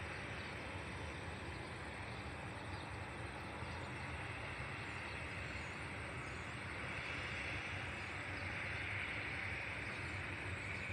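Distant jet airliner's engines, a steady rushing noise as it rolls out along the runway after landing, growing slightly louder near the end.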